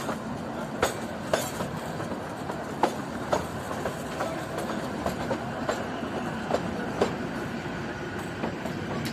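Kalka–Shimla narrow-gauge toy train running, its wheels clicking over rail joints: sharp clicks, several in pairs about half a second apart, over a steady rumble.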